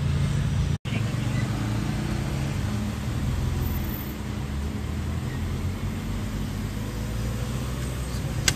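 Steady car engine and road noise heard from inside the cabin while driving. The sound drops out for a split second about a second in. A single sharp click comes near the end.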